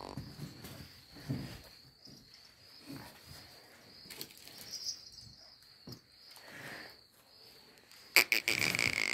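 A steady, high, slightly wavering insect chirr, like a cricket, under soft low rustling from Khillar bullocks feeding on straw and fodder. Near the end there is a sudden loud click, then a whistle-like tone that falls in pitch over about a second.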